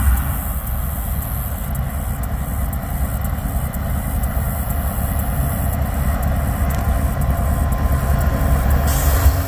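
Norfolk Southern GE diesel locomotives, a rebuilt Dash 9 (AC44C6M) leading a second Dash 9, running as they haul a freight train toward the listener, with a steady low engine rumble.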